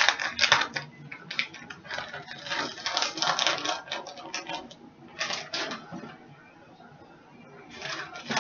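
Kitchen handling noise while shredded mozzarella is put onto a lasagna layer: a few bursts of rapid clicking and rustling, with a quieter pause near the end.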